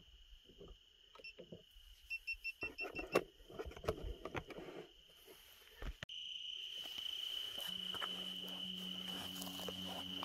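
Insects trilling steadily at one high pitch, with short bursts of rustling and handling noise about two to five seconds in. After a sudden break about six seconds in, the trill is louder and a low steady hum joins it.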